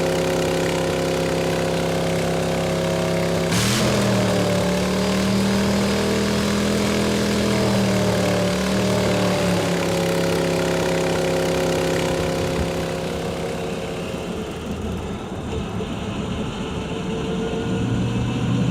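Iso Grifo's V8 engine running steadily, with a sudden sharp burst about three and a half seconds in. After the burst the engine note rises a little and holds, then drops lower and quieter in the last few seconds.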